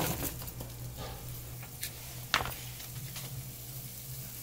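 Chopped red onion chunks tumbling off a plate into a frying pan of potatoes in hot oil, with a faint sizzle of the oil, then a sharp clack a little over two seconds in. A steady low hum runs underneath.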